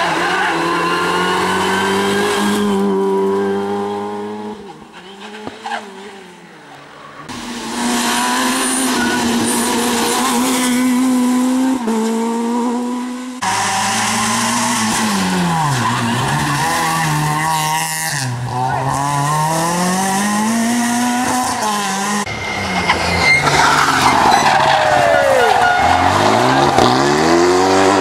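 Rally cars at full speed through corners, several passes cut together: engines revving hard, pitch climbing and falling with gear changes and lifts, with tyre squeal. An Opel Adam rally car passes near the start and a Renault Mégane RS near the end.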